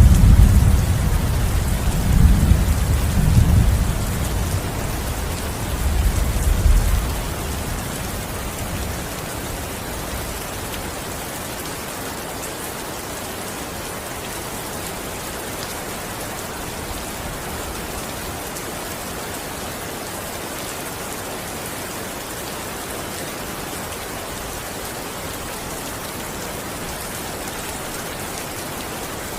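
Heavy rain falling steadily. During the first seven seconds a low, rolling rumble of thunder swells several times and then dies away, leaving only the rain.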